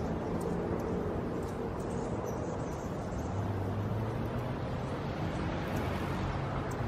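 Anna's hummingbirds at a feeder: a steady low whir of wings from birds hovering close by, with a few faint, very short high chip notes, over a constant background hum.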